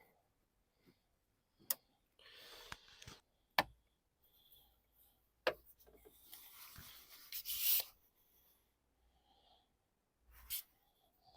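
Scattered sharp clicks and knocks, with two short stretches of rubbing, scraping noise: one about two to three seconds in and a longer one about six to eight seconds in.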